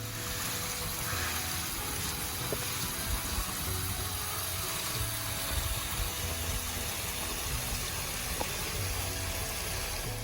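A steady rushing noise, with faint background music underneath.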